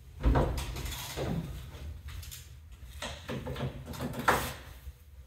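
Metal clunks and knocks from work at the open door and door frame of a Peterbilt 379 sleeper bunk, about four of them, the loudest a little after four seconds in.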